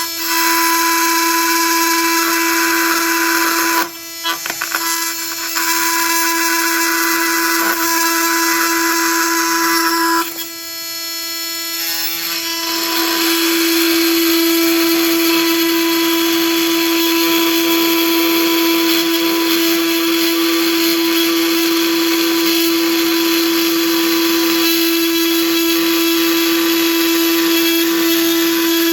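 Oscillating multi-tool with a Milwaukee Nitrus Carbide blade cutting through steel hardware, a loud, steady, high buzz. It stops briefly about four seconds in and again for a couple of seconds around ten seconds in, then runs without a break to the end.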